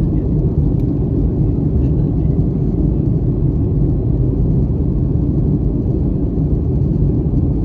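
Steady low rumble inside a Boeing 737-800's cabin in flight during descent: the CFM56-7B engines and the airflow over the fuselage, heard from a seat behind the wing.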